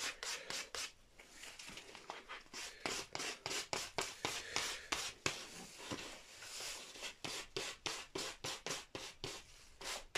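Sandpaper rubbed by hand over the cured clear lacquer on a guitar headstock face in quick, scratchy back-and-forth strokes, several a second, with brief pauses: scuff-sanding the clear coat dull before the next coats are sprayed.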